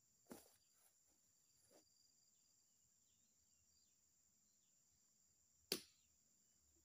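Faint steady insect buzz, with a soft knock just after the start and a sharp, louder knock near the end as a pole spike is jabbed into an oil palm fruit bunch.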